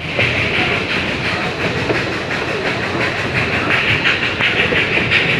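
Puffing Billy narrow-gauge steam train running, a steady, fast rattling clatter of the moving train on the rails.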